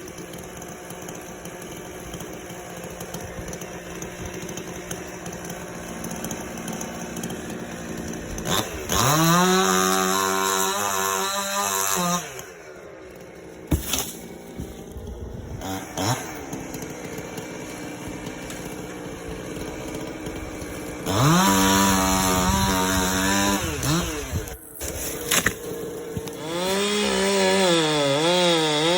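Two-stroke chainsaw idling, then run up to full throttle three times, about nine, twenty-one and twenty-six seconds in. On the last run the engine pitch wavers and dips as the chain cuts into wood.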